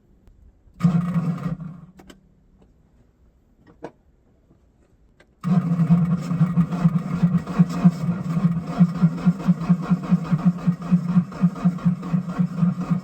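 A vehicle engine being cranked by its starter in the cold: a short crank about a second in, then a long crank of about eight seconds with a fast, even chugging, both stopping abruptly without the engine catching.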